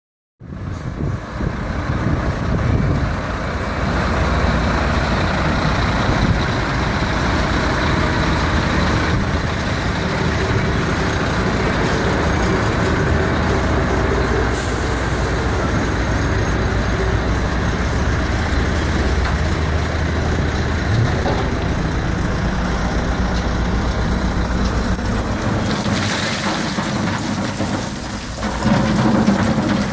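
Volvo tipper lorry's diesel engine running steadily, with a brief hiss about halfway. Near the end, aggregate pours out of the raised tipper body through the tailgate with a rushing, rattling sound.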